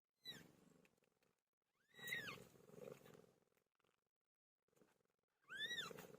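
Cat mewing faintly: three short, high calls that rise and fall in pitch, about two and three seconds apart, each with a rough low rumble under it.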